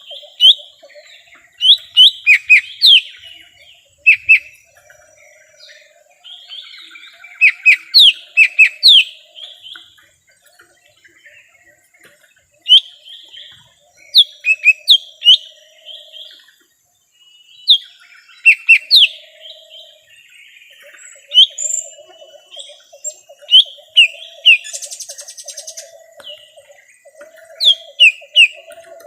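Cucak ijo mini (lesser green leafbird) song used as a trapping lure: loud bursts of sharp, falling whistled notes in quick runs of three to six, repeated every few seconds, over a soft, low chattering.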